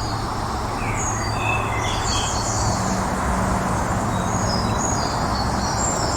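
Woodland songbirds chirping and trilling in short high phrases throughout, over a steady rushing background noise with a low hum.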